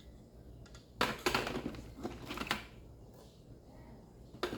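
Small plastic connectors of an LED light kit clicking and rattling as they are handled, in a quick run of clicks for about a second and a half starting about a second in, with one more click near the end.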